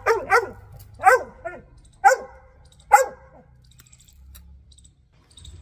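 Young yellow Labrador barking: a run of short barks over the first three seconds, each dropping in pitch.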